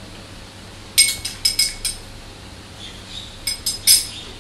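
Metal spoon clinking against a small ceramic bowl: a quick run of ringing clinks about a second in, and another short run near the end.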